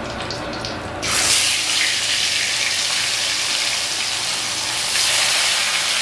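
Fish pieces lowered into hot oil in a kadai, sizzling. A loud, steady hiss starts suddenly about a second in and grows louder again about five seconds in, as a second piece goes in.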